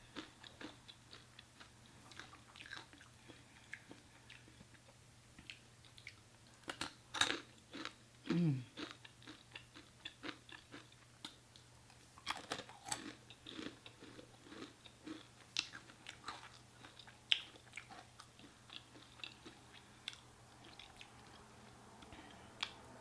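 Close-miked eating: a person chewing and biting food, with many small wet mouth clicks and a few louder bites or crunches scattered through. About eight seconds in there is a short falling hum.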